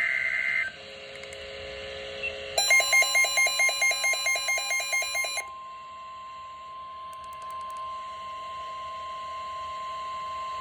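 Emergency weather alert signalling: the end of a short screechy digital data burst, then an alert receiver's alarm beeping about four to five times a second for about three seconds, over the steady single-pitch NOAA Weather Radio 1050 Hz warning alarm tone that sounds on to the end. It is the attention signal for a severe thunderstorm warning.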